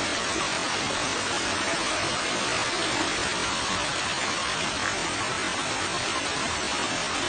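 Water rushing and splashing down a rocky waterfall cascade: a steady, even hiss.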